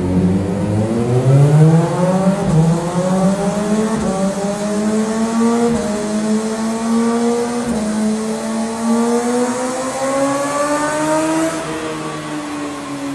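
CFMOTO 500SR S motorcycle engine and exhaust accelerating through the gears. The pitch climbs and breaks back at each upshift, then falls away as the throttle is closed near the end.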